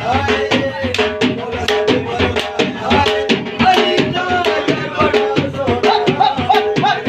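Dhol, a rope-tensioned double-headed barrel drum, beaten in a fast, driving rhythm of about five strikes a second, with a wavering melody line carried over it.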